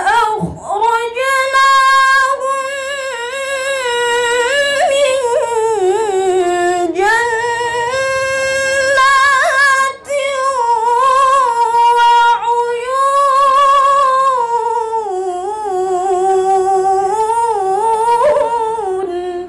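Female voice in melodic Qur'an recitation (tilawah) into a handheld microphone: long held, ornamented phrases that rise and fall in pitch, with a brief break for breath about ten seconds in.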